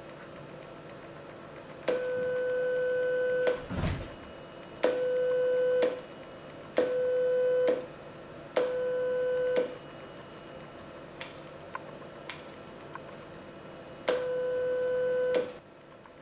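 Test tones from an Amiga 4000's sound output: five steady mid-pitched beeps, each about a second long, with a low thump after the first and a faint, very high tone just before the last.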